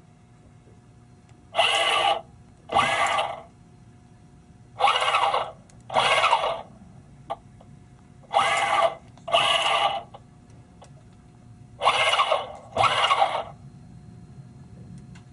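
YAMAS shift actuator motor whining in four pairs of short bursts, each whine rising and falling in pitch. Each pair fits one gear shift of the Hynautic hydraulic shift actuators: into gear, then back to neutral when the remote button is released.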